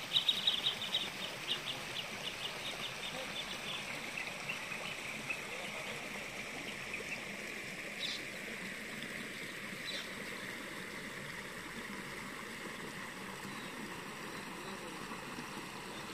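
An animal's rapid clicking call, about a dozen high clicks a second, sliding a little lower and fading over the first few seconds, over a steady outdoor hiss.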